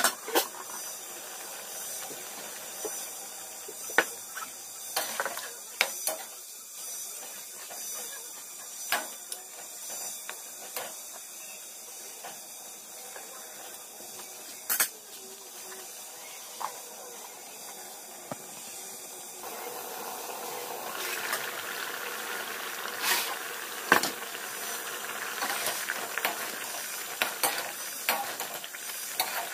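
Mutton curry sizzling in an aluminium kadai while a steel spoon stirs it, with scattered clinks and scrapes of the spoon against the pan. The hiss gets louder about twenty seconds in.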